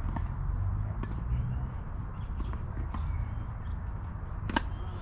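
A tennis serve: a few light taps of the ball being bounced on the court, then a sharp pop of the racket striking the ball about four and a half seconds in, over a steady low rumble.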